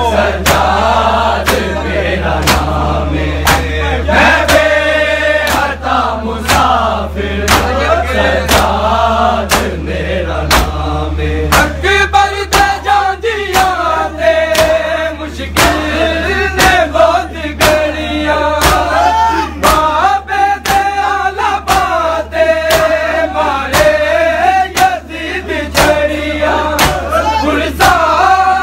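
A crowd of men chanting a noha refrain together while beating their chests in unison (matam), the hand-on-chest slaps falling in a steady beat about twice a second under the singing.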